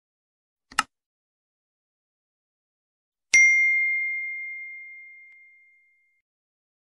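A short click just before a second in, then a single bright bell-like ding a little after three seconds that holds one tone and fades away over about two and a half seconds: a logo-intro sound effect.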